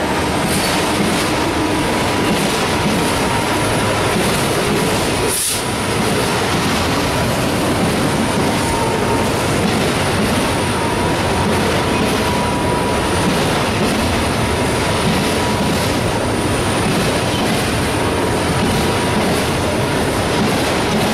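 Freight train of autorack cars rolling past at close range: a steady rumble and rattle of steel wheels on rail, with a thin wheel squeal that comes and goes. One sharp clank about five and a half seconds in.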